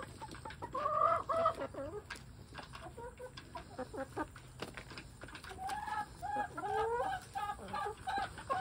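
A small flock of hens clucking in short pitched calls, a cluster about a second in and a longer run from about six seconds on, as they crowd round and peck at a mushy banana. Between the calls come quick sharp ticks of beaks pecking at the fruit and the dirt.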